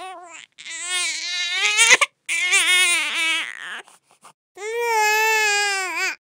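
Infant crying in three long wails, each about a second and a half, with short breaths between them.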